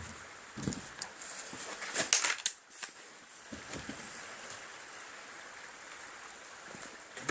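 Gamo Whisper Cat air rifle being handled and fired: a low thump just before one second, then a quick cluster of clicks and knocks about two seconds in that ends in a sharp crack. After that there is only a steady faint outdoor background with a thin, high, steady whine.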